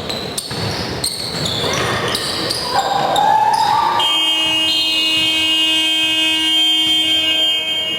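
A basketball bouncing on the court, then about halfway through the scoreboard buzzer sounds one steady horn note for about four seconds.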